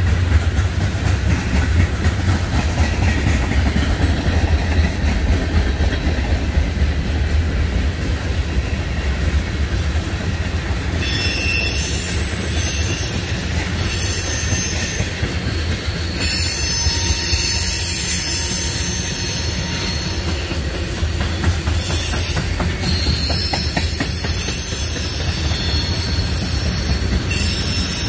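Freight train cars rolling past with a steady low rumble and clatter of wheels on rail. From about eleven seconds in, a high-pitched wheel squeal comes in on and off over it.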